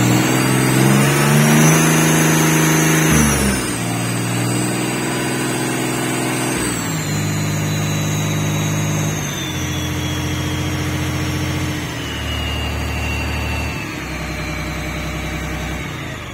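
FPT Iveco N60-400 six-cylinder marine diesel running at high revs, then brought down in about six steps toward idle. A high whine falls with the revs.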